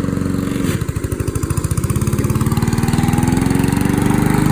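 Small petrol lawn mower engine running. About a second in, its speed drops sharply so the separate firing beats can be heard, then it slowly picks back up to a steady run over the next few seconds.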